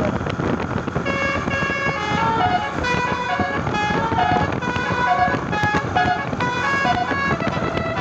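Tour bus telolet basuri musical air horn playing a quick melody of short stepped notes, over the noise of the bus and road traffic.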